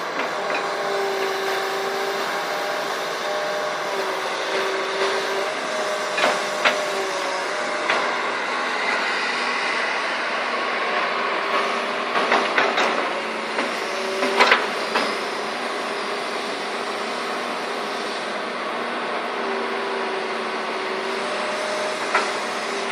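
2007 Doosan excavator running steadily, with a whine that shifts up and down in pitch as the machine works and scattered sharp knocks, the loudest about fourteen seconds in.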